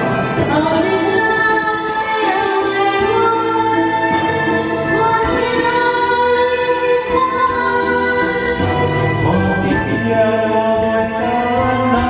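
Karaoke: a woman singing a song into a microphone over the backing track.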